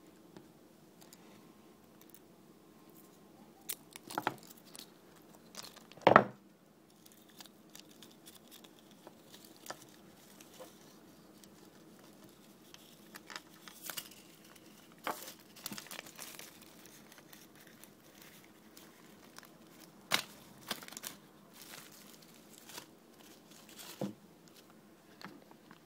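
Scattered small clicks, taps and rustles from handling the parts of an eGo-type e-cigarette battery that is being taken apart. The loudest is a sharp knock about six seconds in.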